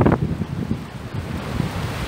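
Wind buffeting the microphone in an uneven low rumble, over the steady hiss of surf on the beach.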